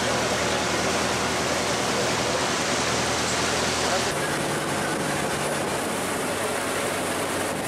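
Motor boat engine running steadily as a low hum under a loud rush of water and wind noise. The mix changes about halfway through.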